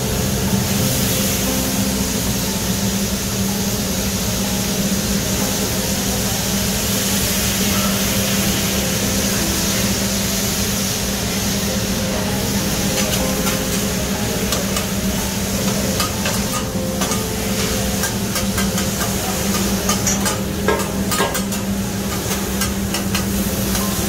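Stir-fry sizzling on a Mongolian barbecue flat-top griddle, a steady hiss. From about halfway through, metal spatulas click and scrape against the steel griddle as the food is tossed.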